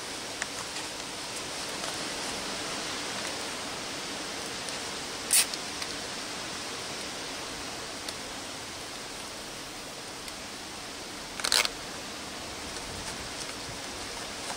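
Two short ratcheting zips of plastic cable ties being pulled tight around bicycle frame cables, about six seconds apart, over a steady background hiss.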